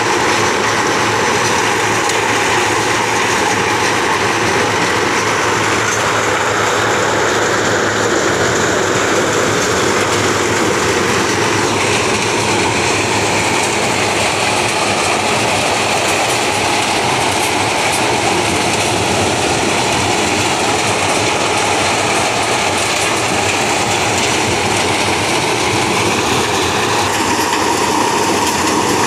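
Maize thresher running under load, shelling maize cobs fed into its hopper: a loud, steady mechanical din of the threshing drum and the cobs going through it. The noise changes in tone slightly about twelve seconds in.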